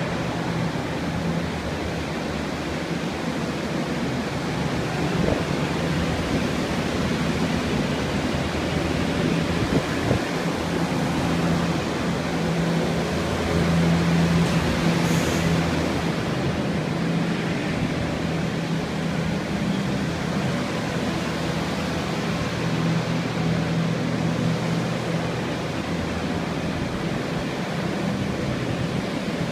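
Structural-drying air movers running together: a steady rush of blown air with a low steady hum.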